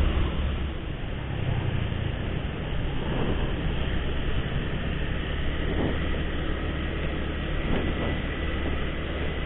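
Steady motorcycle riding noise: engine, wind and road sound while riding through traffic.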